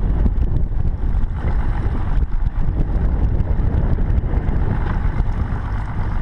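Steady wind rumble buffeting an action camera's microphone on an open boat, with water noise under it.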